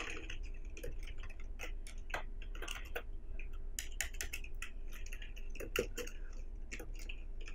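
Computer keyboard being typed on: irregular, quick keystroke clicks, with a faint steady hum underneath.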